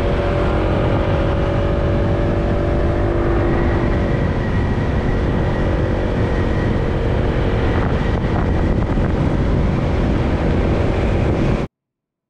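Honda ADV scooter's single-cylinder engine running at a steady cruise under heavy wind noise on the microphone while riding. The engine note fades into the wind about four seconds in. The sound cuts off suddenly just before the end.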